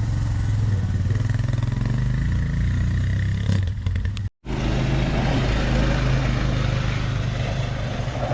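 Off-road buggy engine running at a steady speed. The sound cuts out for a moment about four seconds in.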